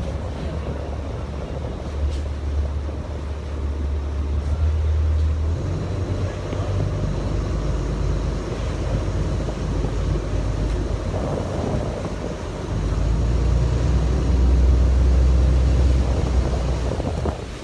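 Steady low rumble of a motorboat at sea, with wind buffeting the microphone. The rumble swells louder for a few seconds after the middle.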